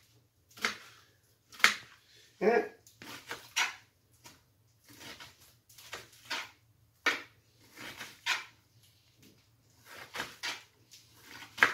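Kitchen knife cutting an onion on a cutting board: irregular single knocks, roughly one every half second to a second, with a short pitched sound about two and a half seconds in.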